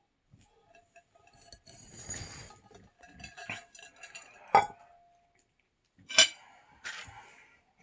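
Glass and dishes clinking and clattering as they are handled and set down on a table, with one sharp clink about halfway through that rings briefly, and two more knocks near the end.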